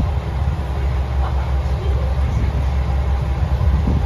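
KiHa 120-series diesel railcar's engine idling at the platform, a steady low rumble.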